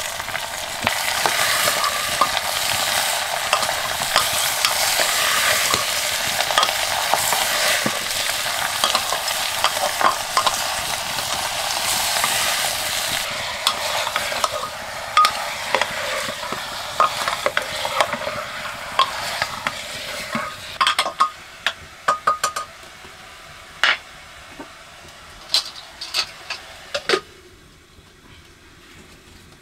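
Mutton sizzling in an aluminium pressure cooker, with a metal spoon stirring and scraping against the pot. The sizzling dies down after about twenty seconds, leaving scattered metal clicks and clinks.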